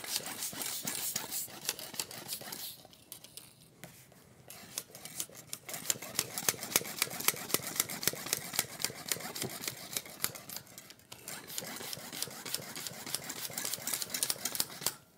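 Hand bicycle pump inflating an inner tube: rapid pumping strokes with air hiss and the rattle of the pump, with two brief pauses, about three seconds in and near eleven seconds.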